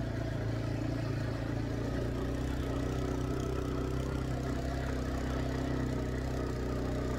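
Quad bike (ATV) engine running at a steady, even pitch.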